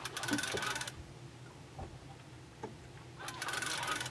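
Sea-fishing reel clicking rapidly in two short bursts, one at the start and one near the end, as line is worked on a hooked conger eel.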